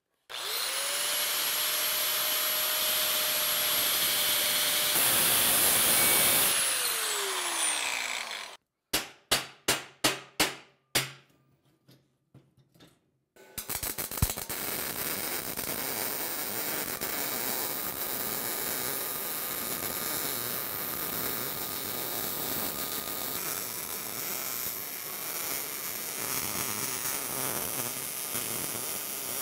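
An angle grinder with a cut-off wheel spins up, cuts through a steel brake pedal arm, then winds down with falling pitch. After about seven short bursts and a brief pause, a MIG welder's arc crackles steadily through the second half as the new pedal pad is welded on.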